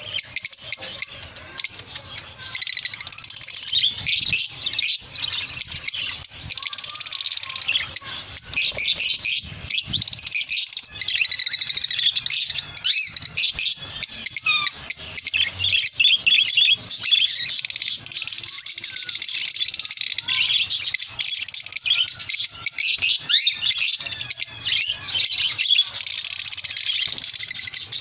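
Lovebirds chattering and chirping continuously, many rapid high-pitched notes overlapping with no break.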